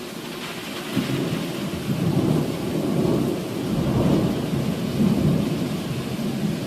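Thunder rumbling in uneven rolls over steady rain, swelling about a second in.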